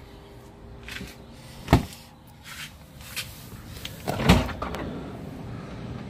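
LG refrigerator door and bottom freezer drawer being handled: a sharp knock a little under two seconds in, then a louder thud with a short rattle past the four-second mark as the freezer drawer is pulled open.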